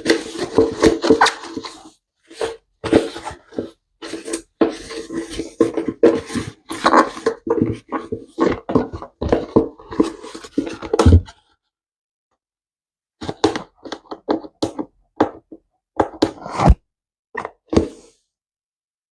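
Clatter of things being handled: irregular knocks and clicks, dense with a steady hum under them, then a short dead silence, then a sparser run of knocks near the end.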